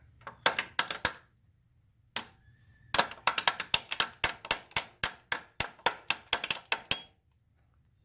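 Tool tapping on the connecting-rod bearing cap of a Honda B18B engine to knock the cap loose from the crankshaft, where the bearing has spun. A few sharp taps, a pause, then a fast run of about five taps a second for some four seconds.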